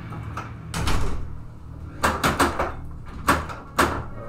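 Stern Lightning (1981) pinball machine in play: several sharp mechanical clunks and knocks from the ball, flippers and playfield solenoids, over a low steady hum.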